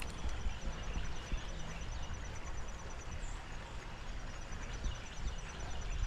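Outdoor creekside ambience: wind rumbling on the microphone over a steady rush, with one faint high bird-like chirp about halfway through.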